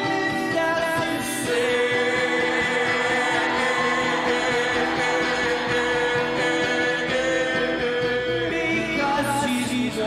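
Live indie-folk song: male voices singing, with one long held note, over strummed acoustic guitar.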